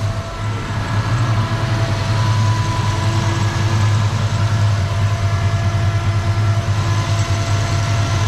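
Turbocharged 302 V8 in a 1987 Ford Ranger idling steadily, settling to an even idle in the first second, with thin steady whines above the engine note.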